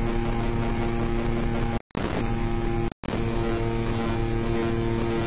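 A few milliseconds of recorded audio looped over and over in a DAW, repeating so fast that it becomes a steady buzzing drone with several fixed pitches stacked over a low rumble. It drops out for an instant twice, just before two seconds in and at about three seconds in, then carries on the same.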